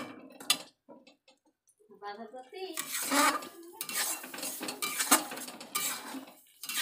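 Metal spatula scraping and knocking against a metal kadai while stirring thick coconut-paste masala. A couple of sharp knocks, a short near-quiet gap, then steady scraping strokes from about two seconds in.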